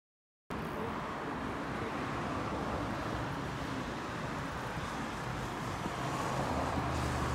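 Road traffic on a busy city street: a steady wash of car engine and tyre noise that starts abruptly about half a second in and grows a little louder near the end.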